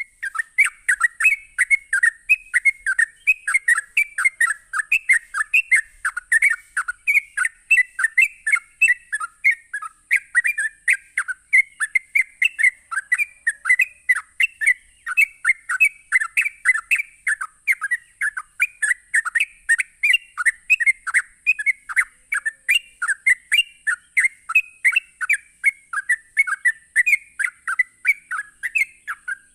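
Yellow-vented bulbul (trucukan) singing its rapid 'ropel' song: an unbroken run of quick whistled notes, about three a second, over a faint steady high hiss.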